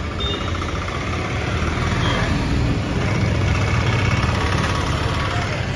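A vehicle engine running steadily: a low, even hum with road or traffic noise around it.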